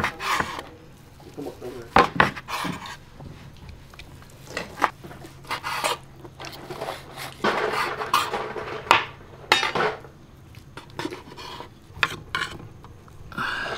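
Kitchen knife slicing braised goat leg on a wooden cutting board: rough scraping cuts through meat and skin, with a few sharp knocks of the blade on the board.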